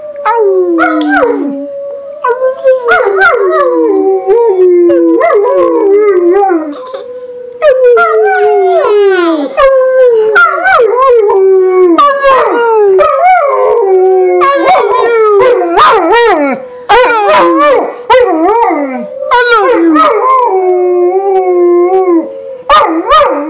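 Mastiff dog howling together with children howling along: long wavering howls that glide up and down, several voices overlapping, with brief pauses.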